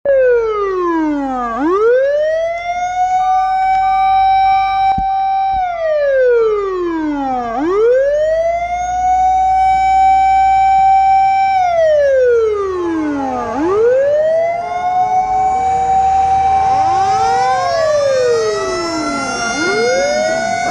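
Fire truck siren wailing, sweeping down, then back up to hold its top pitch for several seconds, a cycle about every six seconds. In the last part a second siren joins in, out of step with the first.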